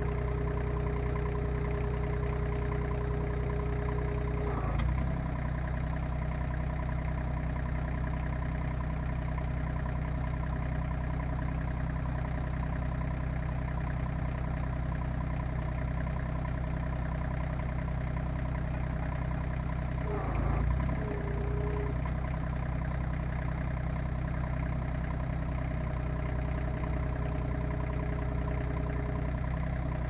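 RK25 compact tractor's diesel engine running steadily while its BH6.7 backhoe is worked. A steady whine over the engine stops with a brief surge about five seconds in, and a second brief surge comes about twenty seconds in.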